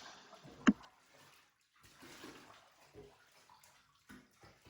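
Water splashing faintly in a bathtub as a dog is wetted down, with soft irregular splashes and a short sharp knock less than a second in.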